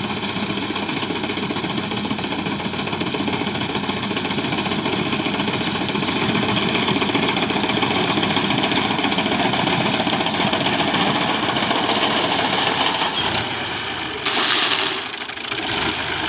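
Engine of a wheat reaper machine running steadily, its sound changing abruptly near the end.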